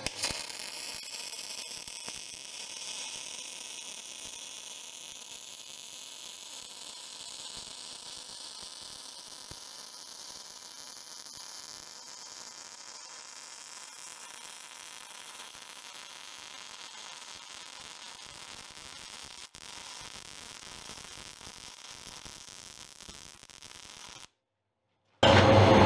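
MIG welder arc crackling and hissing steadily as a continuous bead is laid on steel plate. It stops abruptly near the end, and after about a second of silence a much louder sound cuts in.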